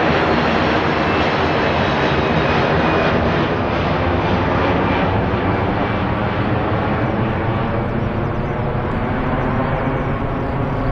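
Jet airliner engines, a loud steady roar that eases off in the second half as the hiss fades first, the sound of the aircraft moving away.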